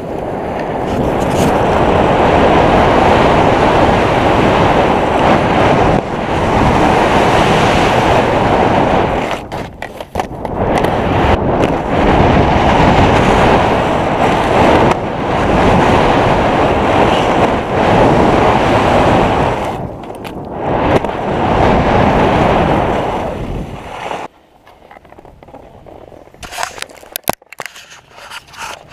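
Rushing noise of skiing downhill with a body-worn camera: wind buffeting the microphone and skis hissing on snow, steady with a few brief dips. About 24 seconds in it drops off sharply, leaving faint rubbing and a few clicks.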